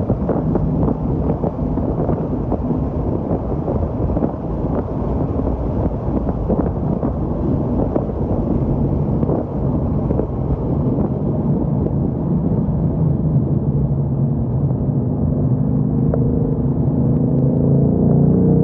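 Ford Mustang Mach 1 heard from inside the cabin: a steady, loud road and engine rumble while cruising in a tall gear. In the last few seconds the 5.0-litre V8's note comes through clearly and rises in pitch as the car accelerates in a lower gear.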